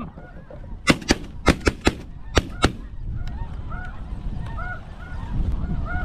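A rapid volley of about seven shotgun shots within two seconds as several hunters fire at snow geese. Snow goose calls then go on faintly over steady wind noise on the microphone.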